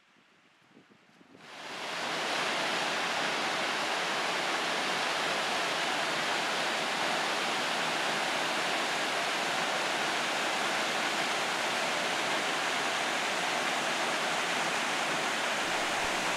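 Waterfall plunging down a rock face into a pool: a steady rush of falling water that comes in about a second and a half in, after near silence.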